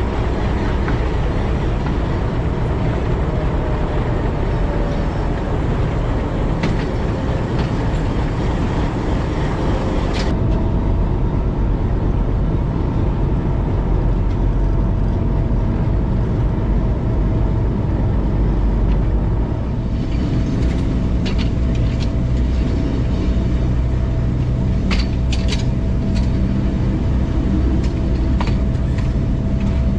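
Diesel locomotive engine running steadily as the train pulls away, a loud low drone with a steady whine above it from about a third of the way in. Scattered clicks and rattles come in over the second half.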